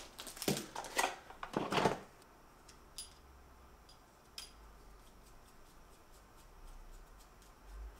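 Small parts and a small cardboard box being handled on a workbench, with a flurry of clicks and rustles in the first two seconds. After that come a few faint, sparse ticks of a small screwdriver working tiny screws on an RC plane's motor mount.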